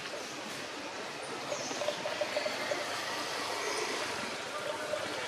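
Steady outdoor background hiss, with a few faint high chirps scattered through it.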